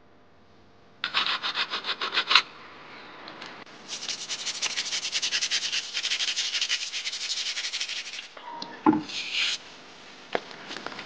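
Quick, rhythmic scraping strokes on the wet, grooved grinding face of a stone millstone as it is worked and scrubbed clean: a short run about a second in, a longer run from about four to eight seconds, then a brief burst with a knock near the end.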